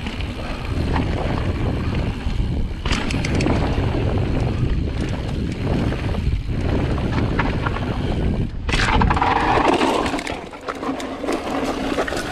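Mountain bike rolling fast down a rocky gravel trail: tyre rumble over loose stones with frequent sharp clicks and rattles from the bike, under steady wind rush on the helmet camera's microphone.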